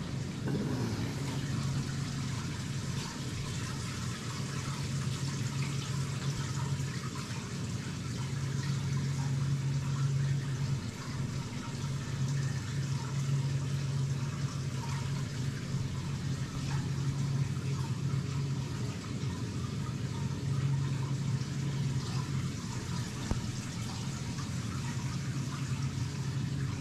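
Steady running, bubbling water over a low, even hum, like a circulating pump.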